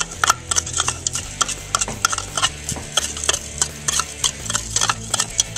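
A spoon stirring Epsom salt crystals into water in a cup, clinking against the cup's side about three or four times a second while the salt dissolves.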